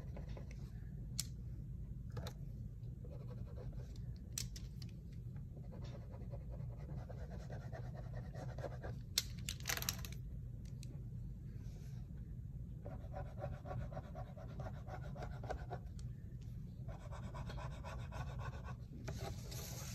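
Scratchy back-and-forth strokes of colouring on paper, over a low steady hum. A few sharp clicks and taps of the colouring sticks being picked up and set down come in the first half, the loudest near the middle.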